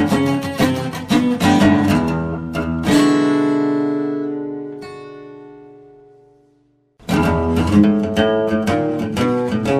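Background music: strummed and plucked acoustic guitar. About three seconds in a chord is left ringing and dies away into a brief silence, and the playing starts again about a second later.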